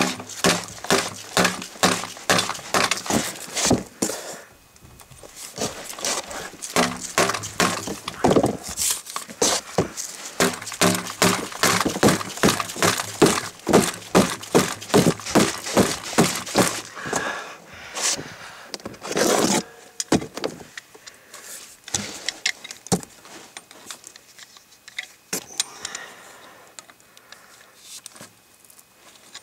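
Thread seal tape being pulled off its roll and wrapped around the threads of a metal pipe nipple: a quick run of short crackling, stretching pulls about two a second, thinning out after about 17 seconds into occasional rustles and clinks of handling.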